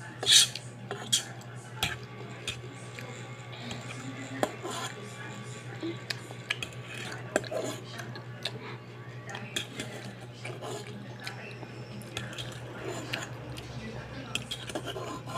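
Metal fork clinking and scraping against the inside of a rice cooker's inner pot as noodles are picked out, in scattered sharp clinks; the loudest comes about half a second in. A steady low hum runs beneath.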